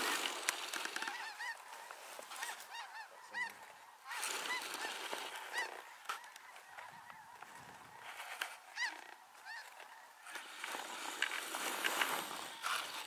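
A flock of snow geese calling as they circle overhead: many short, overlapping high-pitched yelps and honks scattered throughout.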